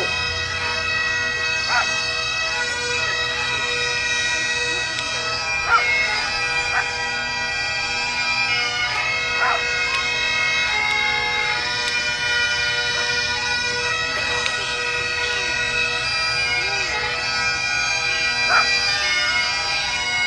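Bagpipes playing a tune of long held notes over a steady drone, with a few quick grace-note flicks between notes.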